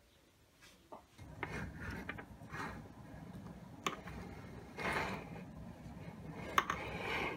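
Wooden link chain of a homemade gumball-machine lift running over its wooden sprocket, starting about a second in: a steady rattling rumble of links and screw heads, with occasional sharp clicks.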